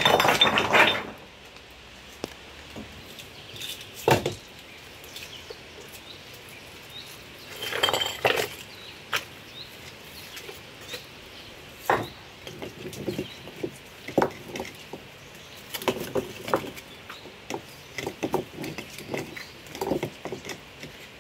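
Stones knocking and scraping against each other as rounded stones are set by hand into a dry-stone wall, in scattered clacks that come more often near the end.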